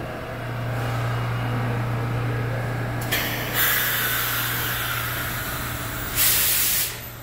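Compressed air hissing from a vintage New York City subway train standing at the platform: a hiss sets in about three seconds in and carries on, then a loud burst lasting under a second near the end. A steady low hum underlies it.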